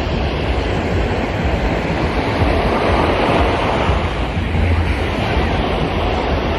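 Beach ambience: surf washing ashore and wind buffeting the microphone, a steady rushing noise with a low rumble underneath.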